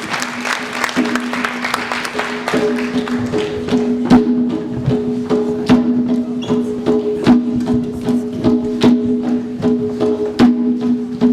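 Percussion struck in a slow, steady beat over a held drone on two pitches, the opening of a class performance piece. Applause fades out in the first couple of seconds.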